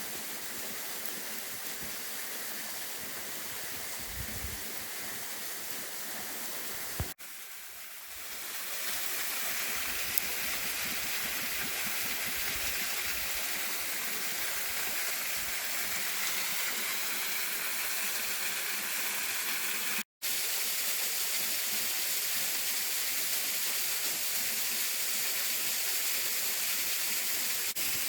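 Steady rushing of a waterfall, an even wash of water noise. It breaks off briefly twice and is a little louder after the first break.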